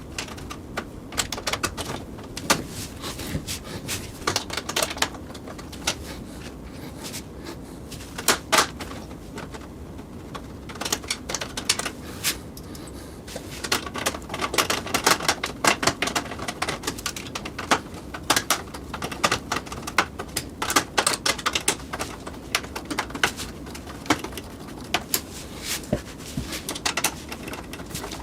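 Irregular clicks, taps and light knocks of plastic and metal PC case parts being handled and fitted, coming thicker and faster in the second half.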